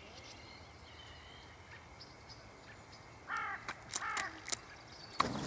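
A crow calling twice, two short harsh caws about three and four seconds in, over faint birdsong. Near the end a gust of wind buffets the microphone.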